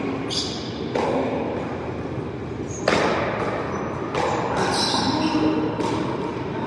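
Paddleball rally: a ball smacked by paddles and rebounding off the front wall, four sharp hits one to two seconds apart, the loudest about three seconds in, each echoing in a large hall.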